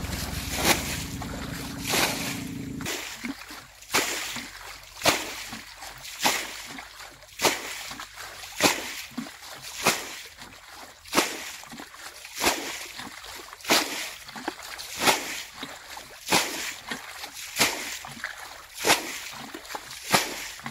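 Water being bailed out of a shallow muddy pool with a plastic bucket: a scoop and a splash of flung water about every second and a quarter, in a steady rhythm.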